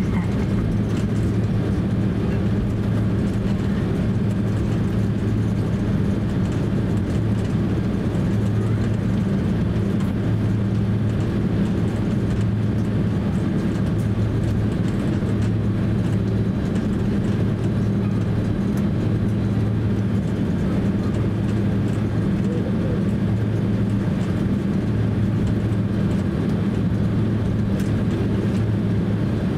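Cabin noise of a Boeing 767-300 airliner taxiing: a steady low drone with an even hum from the engines at taxi power.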